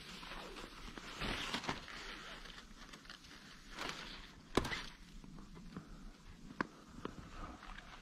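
Slow, irregular footsteps crunching through snow, with a few sharp clicks or snaps; the loudest comes about four and a half seconds in.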